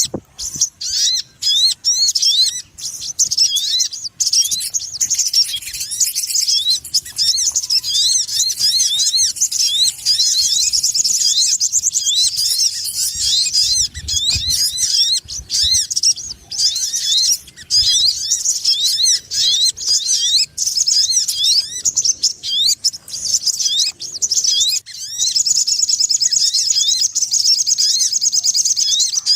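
Sogon bird calls played as a trapping lure: a noisy, nearly unbroken chatter of quick, high, rising chirps running into fast trills, with brief pauses between bouts.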